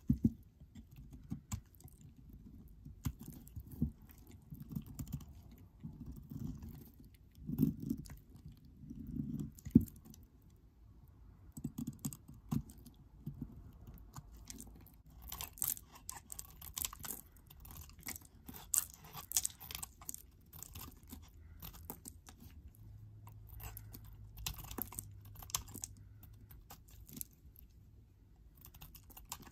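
Snap-off utility knife blade shaving thin curls off a bar of soap: crisp crackling scrapes in short runs, thickest in the second half.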